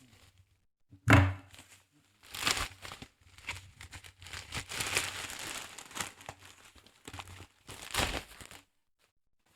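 Plastic packaging bag being torn open and crinkled by hand, with a single thump about a second in.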